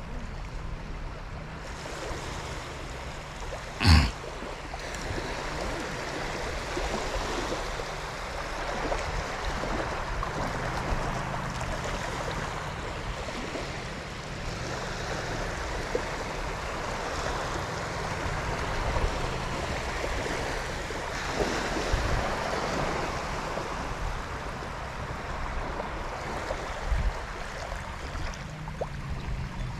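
Small waves washing onto a sandy beach: a steady surf noise. A single sharp knock sounds about four seconds in.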